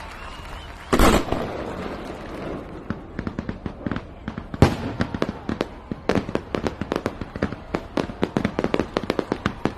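Fireworks display: a loud shell burst about a second in and another near the middle, then rapid crackling reports, several a second, through the second half.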